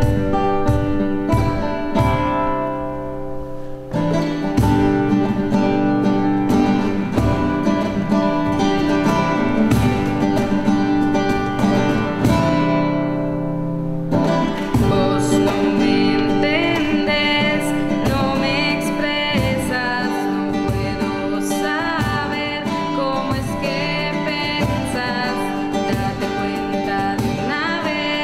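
Acoustic guitar strummed in a steady rhythm, with a voice starting to sing a melody over it about halfway through.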